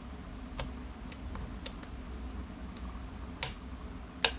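Light metallic clicks of a lock pick working the pins inside a 5-pin Interlock-based pin tumbler challenge lock: scattered faint ticks, then two sharper clicks near the end.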